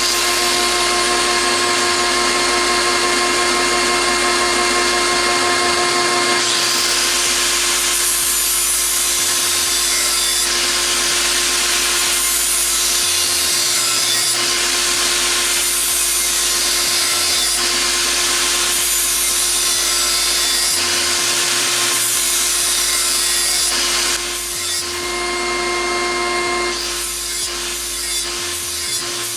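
Electric angle grinder with an 80-grit disc running steadily and grinding the cutting edge of a steel lawn mower blade, the grinding hiss coming in repeated passes every three to four seconds, with shorter quicker passes near the end. A shop vac runs alongside to pull away the metal dust.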